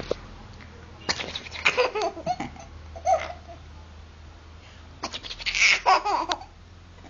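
Laughter in two bouts, one starting about a second in and another about five seconds in, each a run of short bursts.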